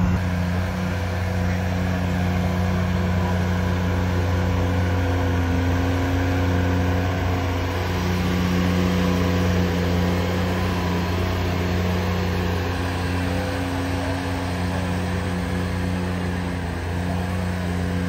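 Ventrac 45RC compact tractor's engine running steadily at an even speed.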